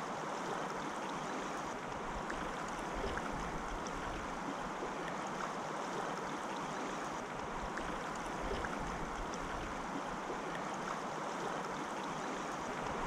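Shallow river current running steadily over rocks: an even rush of flowing water close by.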